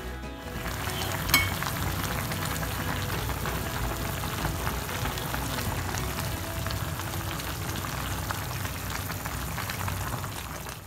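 Fish-head and vegetable stew simmering in a pan, a steady bubbling, crackling sound, with one sharp click about a second and a half in.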